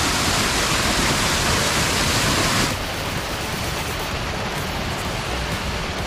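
Waterfall: a steady rush of falling water. About halfway through it drops abruptly to a slightly quieter, duller rush.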